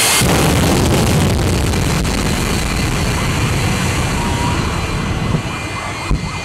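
Jet engine of a jet-powered pickup truck running at high power, a loud steady roar that slowly eases, with a couple of sharp pops near the end.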